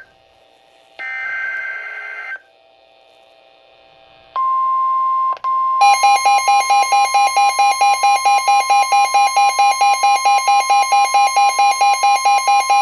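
Emergency alert tones for a severe thunderstorm warning: a short buzzing burst of SAME header data about a second in, then a steady single warning tone of about 1 kHz, the NOAA Weather Radio 1050 Hz alert tone. After about a second and a half a loud, shrill pulsing beep of about four beeps a second joins over the steady tone.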